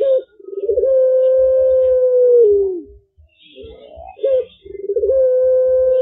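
Young puter pelung (ringneck dove) cooing: a long drawn-out coo held on one pitch for about two seconds and dropping at the end, then a short note and a second long coo starting near the end. The bird is still learning its call.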